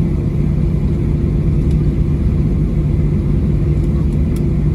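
Cabin noise in a Boeing 737-800 from a window seat behind the wing: the CFM56-7B engines' steady drone over a low rumble, holding level throughout.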